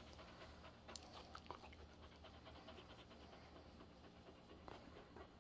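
A pregnant dog close to whelping, panting softly: faint, quick breaths through an open mouth.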